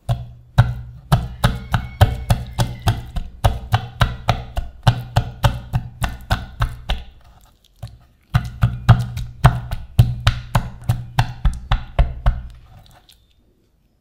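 Quick, regular knocks on a wooden cutting board, about four a second, as a raw chicken wing is pricked all over with a pointed utensil. There is a short break about seven and a half seconds in, and the knocking stops a second or so before the end.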